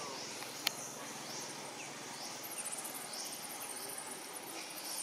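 Outdoor natural ambience: short high chirps repeat every half second to a second, and a high insect trill comes in about halfway through. A single sharp click sounds just under a second in.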